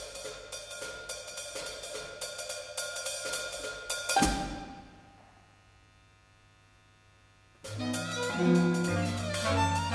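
A hi-hat played in fast, dense strokes, ending on a loud accented stroke about four seconds in that rings away. After about three seconds of quiet, a solo violin and the ensemble come in together with chords and low notes.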